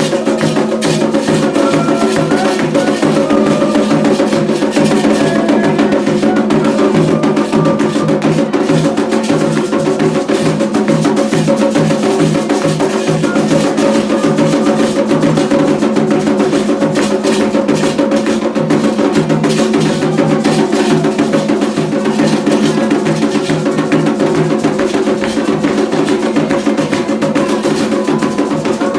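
Candomblé ritual drumming: atabaque hand drums and other percussion playing a dense, steady rhythm.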